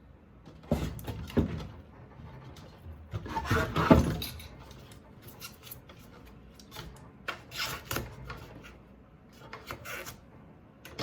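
Irregular rubbing, scraping and knocking of plastic and metal parts being handled and pulled apart in the teardown of a portable ice maker, loudest about four seconds in.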